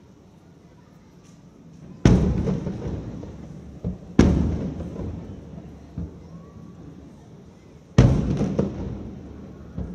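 Aerial firework shells bursting: three loud booms about two, four and eight seconds in, each dying away in a rolling echo over a second or two, with fainter thumps in between.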